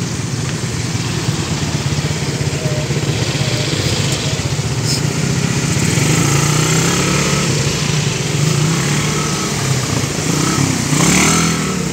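Motorcycle engine running steadily at low speed as the bike creeps through stop-and-go traffic.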